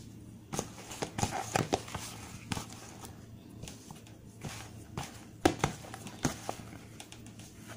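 Risen yeast dough being kneaded by hand in a plastic tub: irregular soft thuds, slaps and taps, with one sharper knock a little past the middle.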